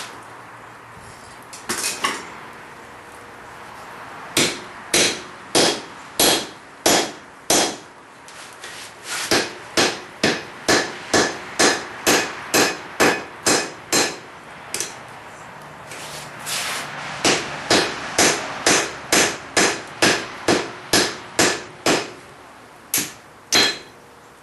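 Hand hammer blows on an anvil, driving a swage into the red-hot steel head of a hide scraper, each blow with a short metallic ring. The blows come in several runs of about two a second, with short pauses between them.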